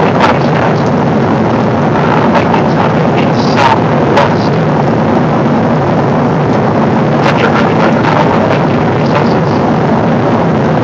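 Steady rushing cabin noise of a Boeing 777 airliner in flight, the engines and airflow blended into one even sound, with a few brief clicks here and there.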